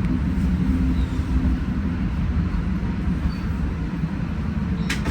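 Train rumbling along the rails, a steady low rumble, with a brief click near the end.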